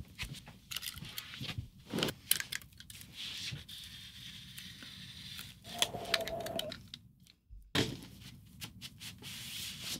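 Shrink wrap on a vinyl record jacket being slit with a utility knife, the plastic film crinkling and tearing, with scattered clicks and rustles from the cardboard sleeve.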